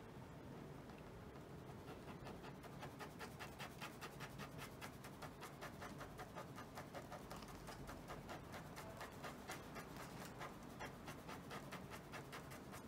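Ballpoint pen scratching faintly on paper in quick, even back-and-forth hatching strokes, about four a second, pressed harder to lay in dark shading. The strokes grow distinct about two seconds in.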